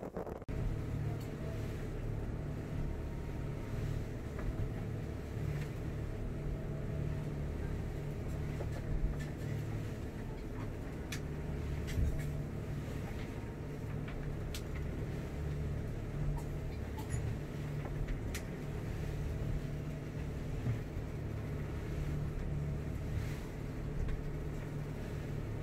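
A 2002 Bayliner 4788 motor yacht's twin diesel engines running steadily under way as a low drone, with a few scattered knocks and ticks.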